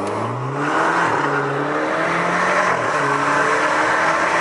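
Alfa Romeo Giulia's turbocharged engine with an aftermarket air intake, heard from inside the cabin under hard acceleration. The engine note climbs in pitch and drops back with the upshifts, over a loud intake and turbo rush.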